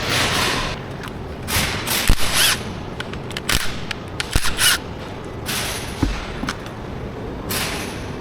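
Air tool running in about four short bursts under a second each, with sharp metal clanks between them.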